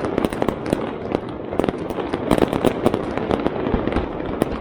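Fireworks going off in a dense, continuous barrage of sharp bangs and crackles, many per second.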